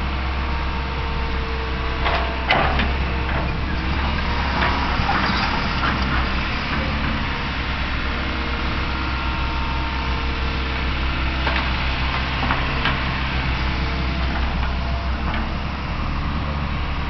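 Fiat-Hitachi EX135 tracked excavator's diesel engine running steadily as it spreads topsoil, with a few knocks and rattles from the bucket and arm, the loudest about two and a half seconds in.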